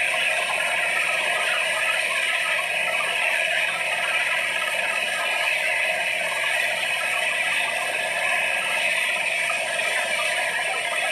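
Black Hawk helicopter running on the ground after landing, turbines and main rotor turning with a steady, unbroken mechanical noise.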